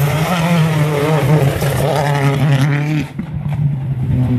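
World Rally Car's turbocharged four-cylinder engine at full revs as the car passes, its pitch rising and falling with the throttle; it drops in level about three seconds in.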